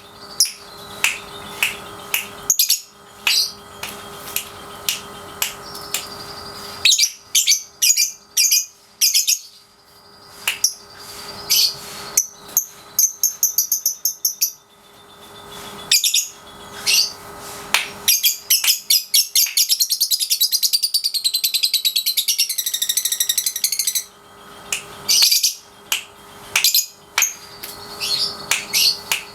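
Young lovebird chirping in short, sharp, high calls, then, about two-thirds in, breaking into a long continuous rapid chattering trill lasting about six seconds: the ngekek that the bird is being trained to sing. A faint steady hum runs underneath.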